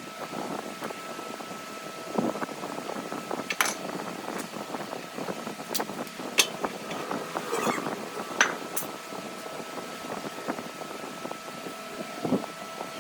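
A steady mechanical hum with many scattered clicks and knocks, a few of them sharper and louder.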